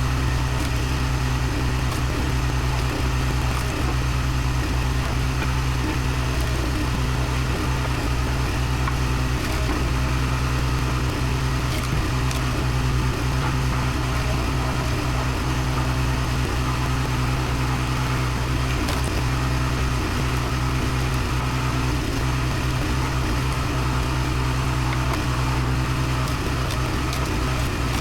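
Engine powering a hydraulic log splitter running steadily, with a few faint sharp pops as the wood splits.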